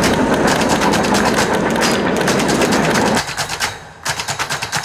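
Airsoft guns firing on full auto: a fast rattle of shots, breaking into short separate bursts about three seconds in.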